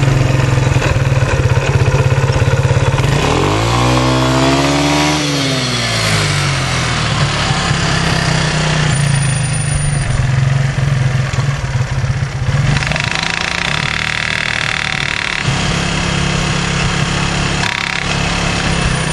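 Yamaha Breeze ATV engine running steadily, revving up once about three and a half seconds in and dropping back about two seconds later.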